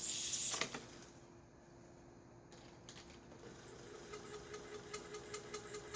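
A 5.25-inch 360K floppy drive: a brief clatter at the start as the disk goes back in, then the spindle running with a steady squeak that rises in pitch partway through, and rapid ticking from the head stepper as it reads. The owner suspects the squeak comes from a dry spindle bearing on the rusty drive.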